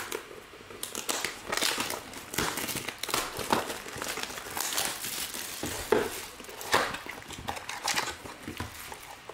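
Plastic packaging and trading cards being handled, crinkling and rustling in uneven crackles.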